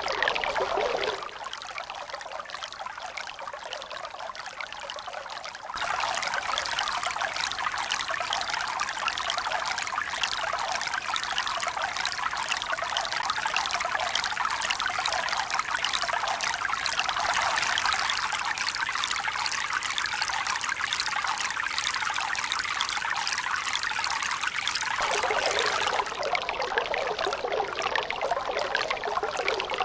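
Steady rushing, pouring water with no pauses. It turns quieter and thinner about a second in, comes back fuller near six seconds, and shifts again abruptly around twenty-five seconds.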